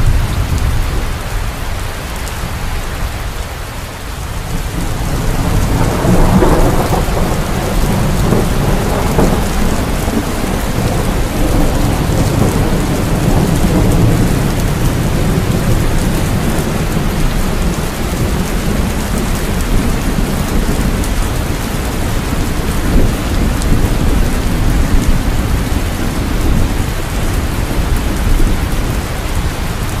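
Steady rain falling, with low thunder rumbling under it. The rumble swells about five seconds in and rolls on for several seconds.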